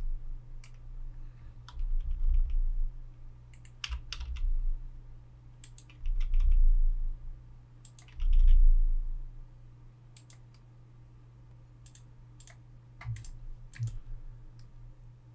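Computer keyboard and mouse clicking in scattered bursts, over a steady low hum. Dull low thumps come in several clusters and are the loudest sounds.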